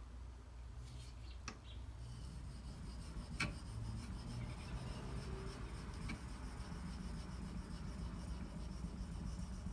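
Microtech Socom Elite's CTS-204P steel blade being stroked across a wet 4000-grit water stone, a soft rubbing scrape, to refine the edge and remove the remaining burr. A few light clicks come about a second and a half in, near the middle, and again a little past six seconds.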